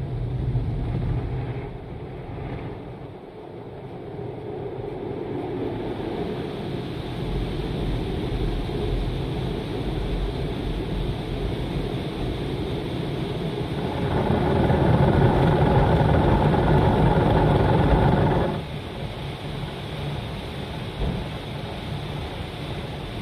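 Automatic drive-through car wash running around the car, heard from inside the cabin as a steady rush of machinery and water. About two thirds of the way in it grows louder for roughly four seconds, then drops suddenly.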